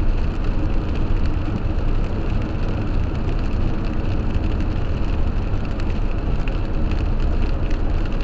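A car driving on a wet highway, heard from inside the cabin: steady tyre and road noise with a low rumble, and scattered light ticks of raindrops hitting the windshield.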